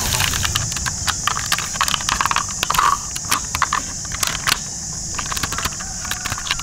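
Hard plastic toy cars being handled, giving a run of irregular clicks and light rattles over a steady high hiss and a low rumble.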